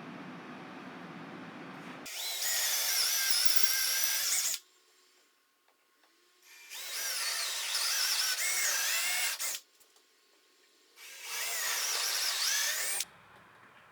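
Handheld power drill run in three bursts of two to three seconds each, its high whine bending in pitch as it loads and eases off.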